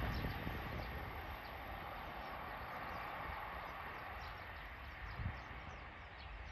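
Rumble of a JR Hokkaido 789-series limited express train fading away after it passes through the station. A small bird chirps over it, short high falling notes about twice a second.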